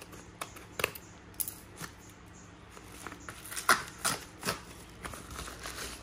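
Kraft bubble mailer being handled and opened by hand: paper rustling with a few short, sharp crackles, the loudest about three and a half seconds in.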